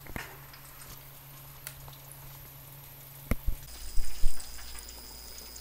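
Battered chicken deep-frying in hot oil in a stainless electric deep fryer, a steady bubbling sizzle with small pops. A sharp click comes a little past three seconds in, followed by a few louder bumps.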